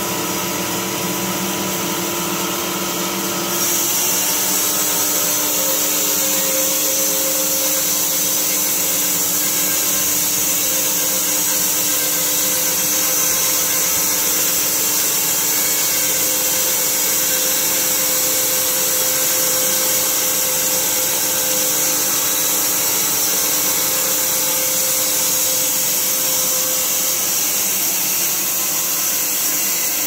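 Semi-automatic sawmill running and sawing a large log, a steady machine noise with a hum in it. About three and a half seconds in it grows louder and a strong high hiss joins it, which then holds steady.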